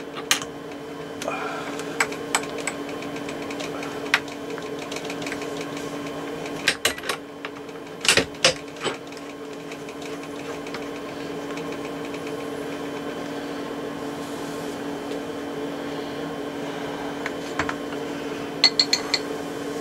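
Steady machine hum from the workshop milling machine setup, with scattered sharp metallic clicks and knocks, a small cluster of them about eight seconds in and a quick run near the end, as tooling for a 6 mm cutter is handled and fitted.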